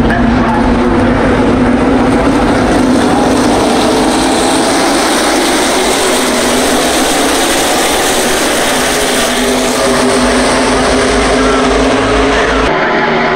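The pack of NASCAR Cup Series stock cars, with V8 engines, running past together in a loud, steady wall of engine noise. The sound changes abruptly near the end.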